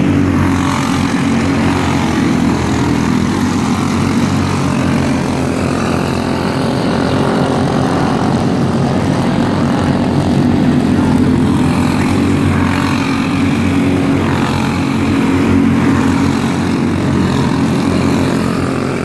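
Small racing kart engines buzzing steadily as the karts lap an asphalt track, the pitch rising and falling as they pass.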